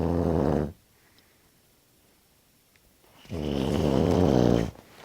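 A person snoring: one snore ends under a second in, and after a couple of seconds of quiet a second snore runs for about a second and a half.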